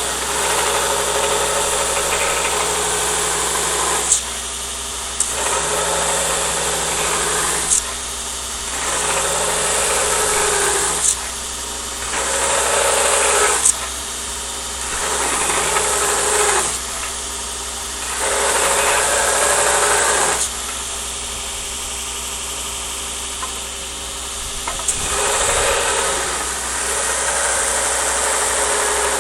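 Belt grinder running, a blade pressed against the belt in repeated passes of two to four seconds each, about seven in all, with the grinding sound rising on each pass and dropping back to the motor's hum between them. Each pass ends with a short sharp click as the blade comes off the belt.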